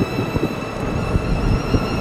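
Wind buffeting the microphone with a low, uneven rumble while moving along a road, under a held high note of background music.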